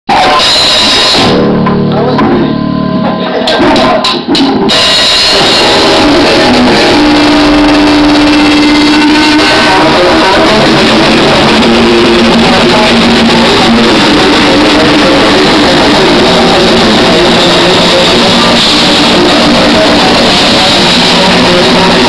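Instrumental metalcore from a live band, with electric guitars, bass and drum kit, recorded so loud that it is heavily distorted. It opens with a few seconds of sparser playing, and the full band comes in about five seconds in.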